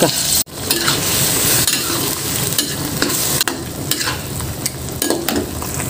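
Skipjack tuna pieces frying in oil and blended chili-tomato paste in a wok, a steady sizzle, with a spatula scraping and stirring through the pan.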